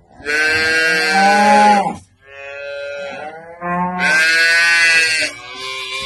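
Cattle mooing: two long, loud moos, each followed by a softer, shorter call.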